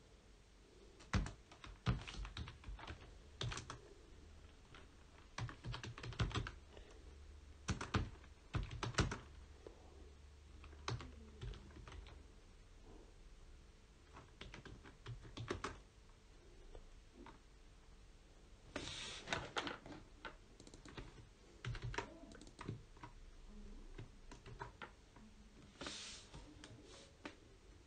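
Typing on a computer keyboard: quick runs of keystrokes in irregular bursts with short pauses between them.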